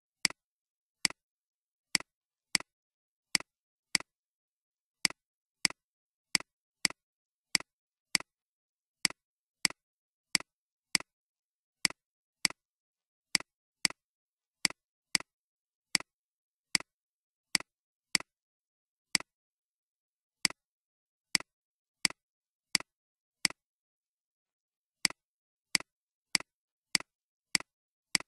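Computer mouse button clicking, about one to two sharp clicks a second at an uneven pace. Each click is a press followed closely by a softer release, with dead silence between clicks.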